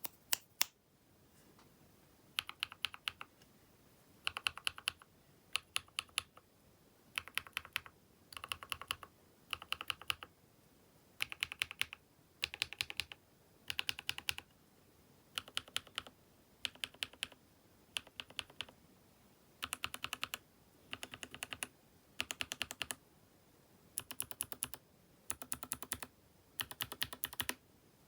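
Keychron K6 Pro mechanical keyboard being typed on: short quick runs of keystroke clacks, one run every second or two with brief pauses between.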